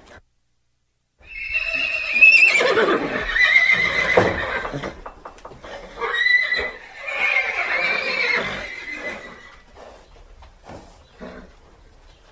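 Horse neighing: two long whinnies, the first starting about a second in and the second about six seconds in, each falling in pitch and trailing off.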